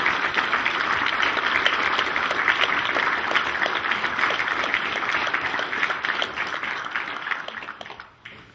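Audience applauding, many hands clapping steadily, then dying away over the last second or so.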